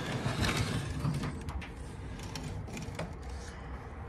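Rustling and a few light clicks as a balcony door is opened and passed through, over a steady low rumble of outdoor ambience.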